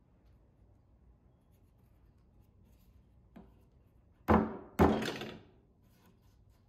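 Two loud thunks on the wooden top of the chest, about half a second apart, the second trailing off briefly, preceded by a faint click.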